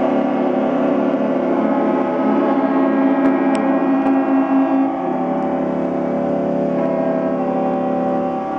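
Ship's horns on many yachts sounding at once: a dense, loud chord of overlapping steady horn tones at many different pitches, held without a break. One of the strongest low horns drops out about halfway through.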